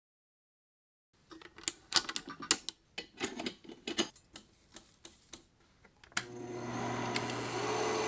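Irregular clicks and clacks of a home film projector being handled and switched on. About six seconds in, its motor starts running with a steady hum that grows slightly louder.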